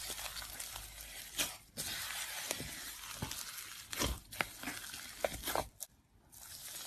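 Slime being pressed and squished by hand: a crackly, crinkling hiss broken by sharp pops and clicks, with a brief quiet pause near the end.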